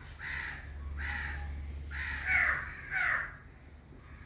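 A crow cawing repeatedly, about one caw a second, each call falling in pitch, the loudest a little past two seconds in.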